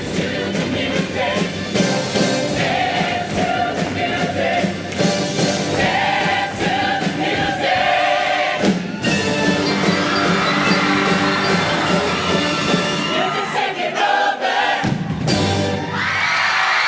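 Show choir singing with instrumental backing, the sung lines breaking off near the end as audience cheering takes over.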